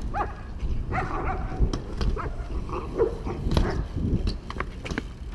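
A dog barking in short, scattered barks, a few times.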